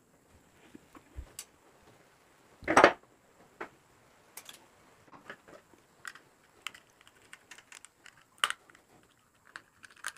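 Small scattered clicks and taps of hands handling a plastic three-pin plug, pliers and a screwdriver as the plug's screws are loosened, with one louder knock about three seconds in.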